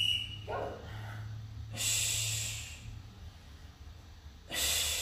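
A woman breathing hard during crunches: two forceful breaths out about two and a half seconds apart, with a brief voiced grunt about half a second in.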